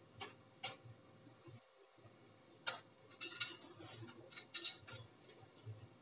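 Light clicks and clinks of steel kitchenware and a plastic strainer being handled: a few sharp ticks in the first second, then small clusters of clinks in the second half.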